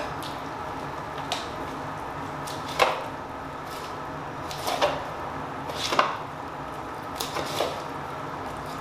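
Irregular light knocks and clicks of objects being handled, about seven spread over several seconds, two of them louder, over a steady low background hum.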